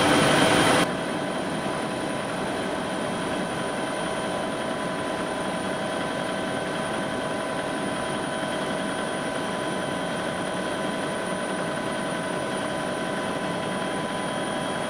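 Helicopter in flight heard from inside the cabin: steady engine and rotor noise with several constant whining tones. It drops suddenly to a lower level about a second in, then holds steady.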